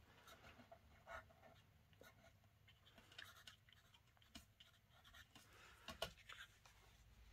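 Faint scratching of a fine-tip pen drawing short strokes on paper, with a few light ticks.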